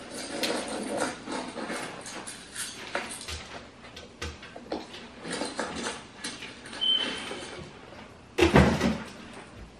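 Kitchen clatter: a string of knocks and clicks from things being handled, with a brief high beep about seven seconds in and a louder bump near the end.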